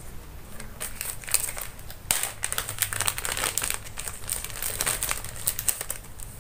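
Thin clear plastic packaging crinkling as it is handled and turned over: a dense run of irregular crackles, busiest from about two seconds in.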